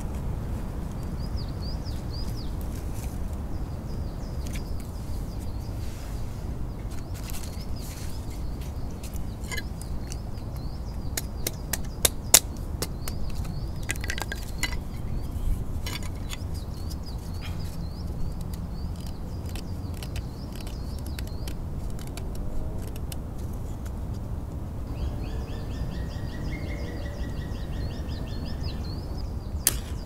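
Dry sticks and kindling clicking and snapping as they are handled, cut with a knife and laid for a campfire, the sharpest snap about twelve seconds in. Songbirds sing over it with a repeated short phrase, joined by a rapid trill near the end.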